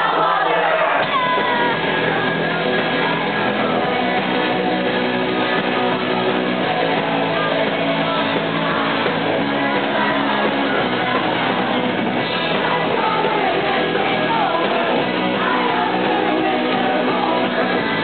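Live rock band playing: electric guitar and loud shouted singing in a large hall, with voices from the crowd singing along close to the microphone.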